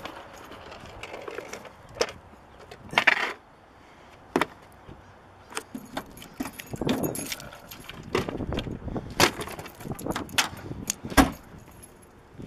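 A bunch of car keys on a lanyard jangling as they are handled, with several sharp clicks and knocks scattered through.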